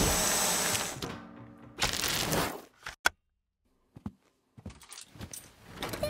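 Dyson cordless handheld vacuum running with a brush tool: a rush of air under a steady high whine that cuts off about a second in. A second brief burst comes about two seconds in, then near quiet with a couple of faint clicks.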